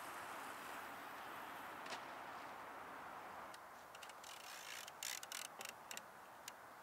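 Faint steady hiss, then from about halfway a scatter of light clicks and ticks as fishing rods and tackle are handled.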